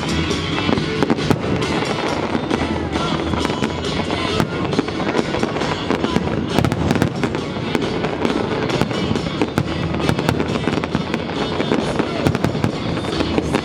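Fireworks bursting and crackling in quick succession, with music playing underneath.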